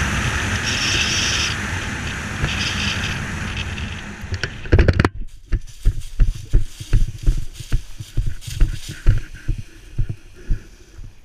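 Wind rushing over a helmet-mounted camera during a parachute's final approach, fading as the canopy slows for landing. A thud of touchdown comes about five seconds in, followed by irregular thumping footfalls on the ground.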